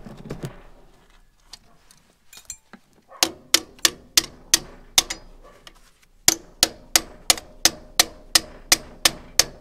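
Metal tool tapping a steel dust cap onto a trailer wheel hub to seat it: sharp ringing metal-on-metal strikes about three a second, a run of about seven, a short pause, then about eleven more.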